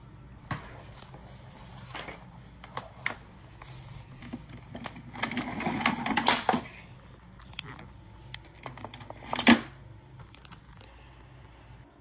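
Handling noise from a vintage 1980 Electrolux Olympia 1 canister vacuum: scattered plastic and metal clicks and knocks, a stretch of scraping and rattling around the middle, and one loud knock near the end.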